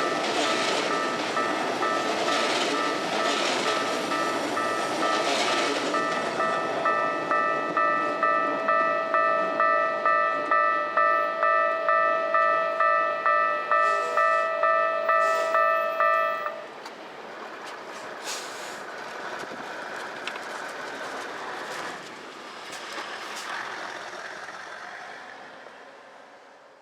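A train runs past a railway level crossing while the crossing's warning bell rings. The train noise dies away about six seconds in. The bell rings on alone, about two strokes a second, and stops about sixteen seconds in as the crossing clears, leaving quieter street background that fades.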